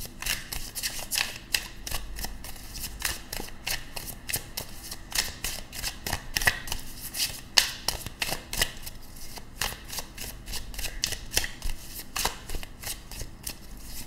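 A tarot deck being shuffled by hand: a steady run of quick, uneven card clicks and flicks, several a second.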